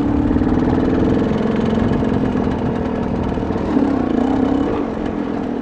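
KTM dirt bike's engine running steadily at low revs while riding slowly, with a brief small rise in revs about four seconds in.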